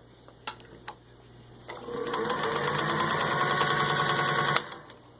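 Singer 201 sewing machine, fitted with an early-1950s motor, running up to speed and stitching fast and evenly through four layers of thin leather for about three seconds, then stopping abruptly. A couple of light clicks come before it starts.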